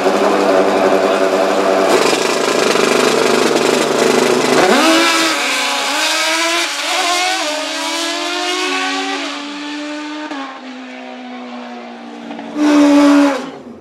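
Drag-racing dirt bike engines at full throttle: a loud blare at first, then from about five seconds in the engine note steps through several gear changes while it fades away down the track. A short loud burst of engine comes near the end.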